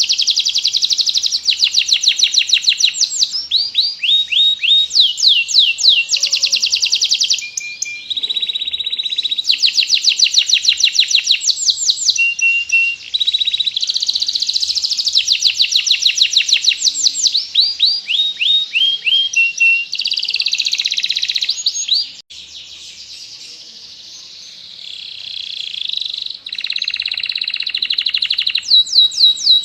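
Domestic canary singing a long, loud song of rapid trills and repeated rolling phrases, going softer for a few seconds about two-thirds of the way through before picking up again.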